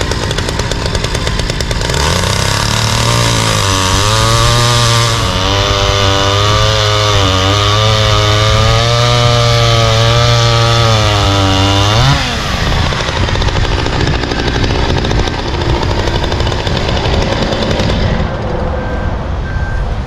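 Vintage Stihl chainsaw, a long bar on a small two-stroke engine, cutting into a log: its engine holds a steady low note under load for about ten seconds, pulling the chain reasonably well. Near the middle it revs up sharply, then drops back to rougher, quieter running.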